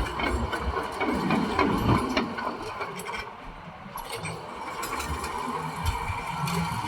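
Caterpillar D9N bulldozer's V8 diesel running under load, with clanking from the tracks and blade. It eases off somewhat around the middle, then builds again near the end.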